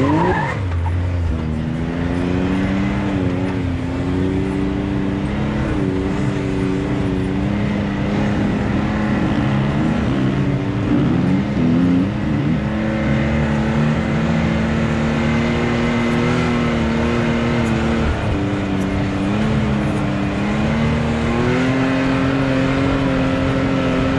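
Can-Am off-road vehicle engines running at close range, the engine note stepping up and down repeatedly as the throttle is worked. About ten to twelve seconds in, a second engine's note slides across the first.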